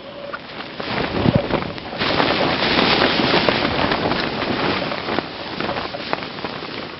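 Strong mountain wind gusting and buffeting the microphone, rising sharply about two seconds in and easing toward the end, with scattered crackles and clicks through it.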